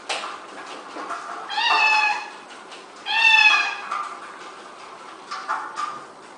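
A cat meowing twice, two short calls that dip slightly in pitch, about a second and a half apart, over a few light clicks.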